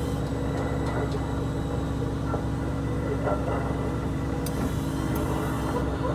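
KATO MR-350R rough-terrain crane's engine and hydraulic winch running with a steady drone, heard from inside the operator's cab, with a few faint ticks.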